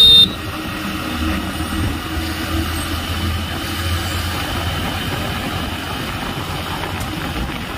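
A vehicle horn sounds briefly right at the start. Then a Hero Splendor Xtec motorcycle's single-cylinder four-stroke engine runs steadily while riding, with wind and road noise on the microphone.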